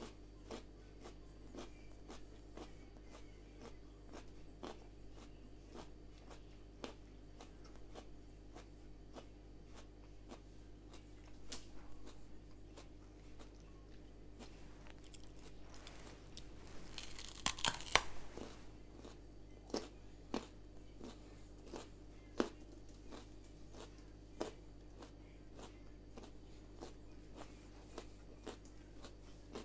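Raw carrot being chewed: a string of small crisp crunches throughout, with a louder burst of crunching a little past the middle. A steady low hum runs underneath.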